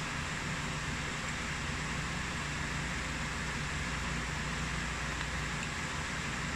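Steady background noise: an even hiss with a low hum underneath, unchanging throughout, with no distinct events standing out.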